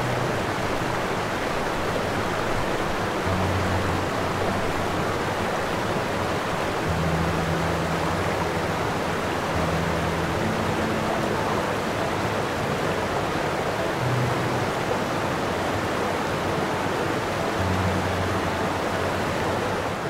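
Steady rushing water sound, even and unbroken, with soft low music notes changing slowly underneath.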